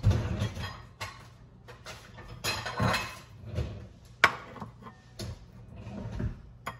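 Ceramic bowl and utensils knocking and clattering on a stone countertop as they are handled and set down, a run of separate knocks with one sharp clink a little past four seconds in.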